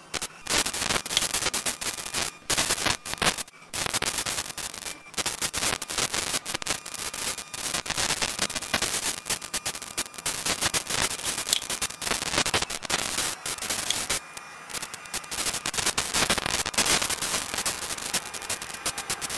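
Dense crackling static on a camera's audio track, with rapid irregular pops and clicks and a few brief dropouts, about three and a half seconds, five seconds and fourteen seconds in. This is electromagnetic interference, which the uploader attributes to extraterrestrial activity.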